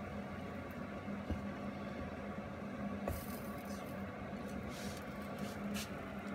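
Steady low hum of a kitchen appliance, with a few faint clicks and soft rustles as an oven mitt handles the lid of a covered roasting pan.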